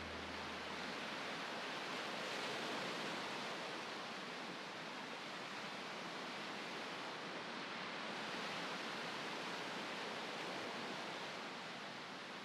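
Steady rushing noise of ocean surf, swelling and easing gently.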